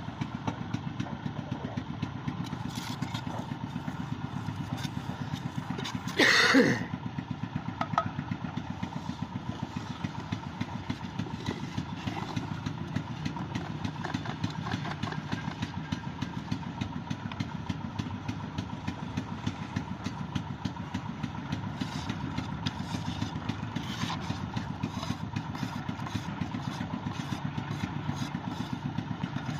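A small engine idling steadily with a rapid, even beat. About six seconds in, a brief louder sound falls in pitch.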